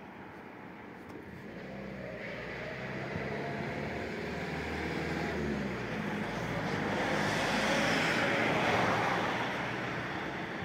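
A motor vehicle passing close by, its engine hum growing louder to a peak near the end and then fading.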